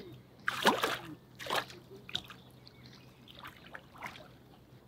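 Swimmers splashing in lake water: irregular splashes, the loudest just over half a second in and another about a second later, then smaller ones.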